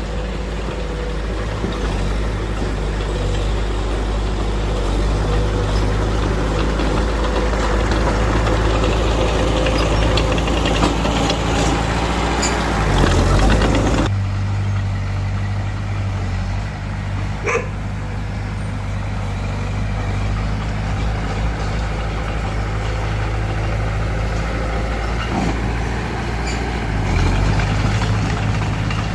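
Heavy diesel earthmoving machinery running steadily. About halfway through, the rougher higher-pitched noise stops suddenly and the low engine drone continues.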